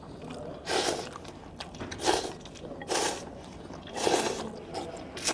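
Someone slurping noodles: four long slurps about a second apart, then a short sharp click near the end.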